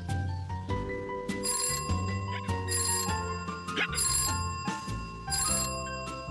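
Gentle cartoon background music with bright, bell-like tones, broken now and then by a cartoon dog's short hiccup sounds.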